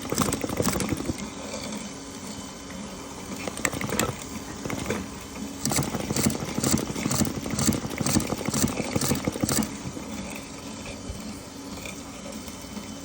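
Double-bead and double-sequin sewing machine running, with a steady mechanical hum and rapid clicking of its needle and feeding mechanism. The clicking is busiest at the start and again through the middle, and lighter in between.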